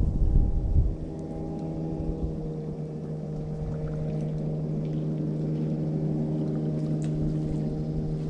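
Motorboat engine running steadily across the lake with an even hum. Low wind rumble on the microphone covers the first second.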